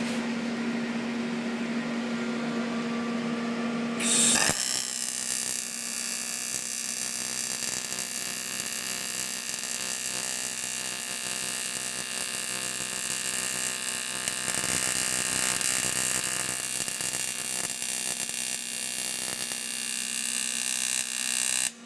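TIG welding arc on an aluminium engine part: a steady buzzing hiss that starts about four seconds in, after a steady hum, and cuts off suddenly just before the end.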